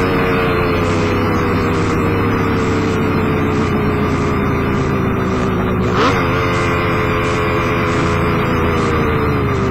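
Kawasaki KH-500's two-stroke triple running under load, heard on board. Its pitch sinks slowly and steadily, with one quick rise and fall in revs about six seconds in.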